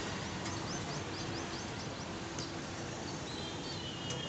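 Street traffic ambience, a steady background hum of road noise, with a quick run of about nine high chirps over the first second and a half.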